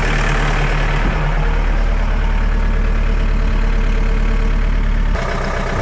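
John Deere 4520 compact tractor's diesel engine running steadily while the hydraulic top link is extended. The engine note shifts about a second in and drops suddenly near the end.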